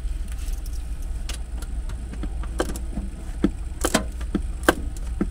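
Irregular metallic clicks and taps of a small socket tool working a very tight bolt on an inverter mounting, over a steady low rumble.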